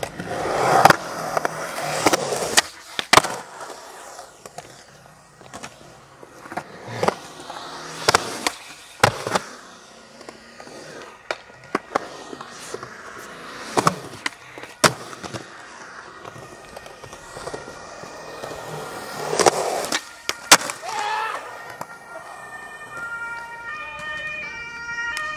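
Skateboard wheels rolling over rough concrete, with repeated sharp wooden clacks of tail pops and landings at irregular intervals through the line.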